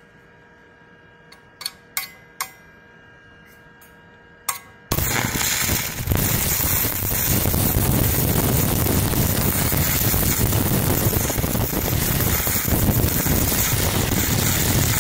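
Stick-welding arc from a 6013 3/32-inch rod run off a Hotbox TIG-200 welder: a few sharp taps as the rod is struck, then about five seconds in the arc catches and crackles steadily and loudly for about ten seconds.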